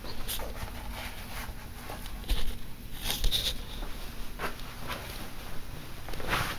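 Handling noise of a camera being carried and covered: scattered, irregular rustles and light knocks over a low hum.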